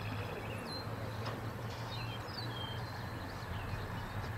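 Outdoor ambience: small birds chirping now and then in short, quick notes over a steady low hum and a background hiss.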